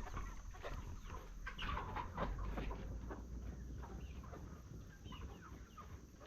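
A flock of chickens clucking, many short overlapping calls that thin out toward the end.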